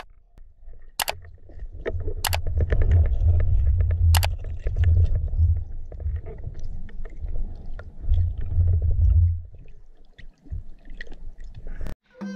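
Muffled underwater sound picked up by a camera below the surface: a low rumble of water and handling, loudest in the middle, with a few sharp clicks in the first four seconds.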